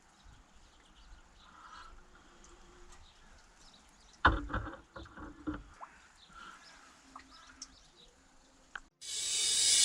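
Quiet background with faint chirps. About four seconds in comes a sharp click, then a short run of clicks and knocks from handling parts and tools during a spark plug and ignition lead change. Near the end a rising whoosh swells into music.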